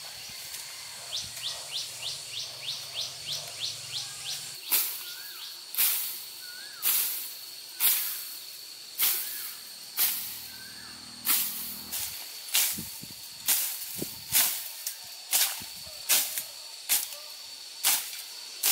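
Sharp wet slaps or splashes, about one a second, over a steady high insect drone; a run of quick rising chirps comes in the first few seconds.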